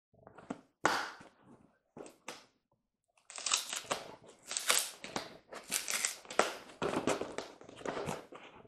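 Packing tape being ripped off a cardboard shipping box and the cardboard crunching as the box is worked open by hand. A few short rips come in the first couple of seconds, then about five seconds of continuous crackling and tearing.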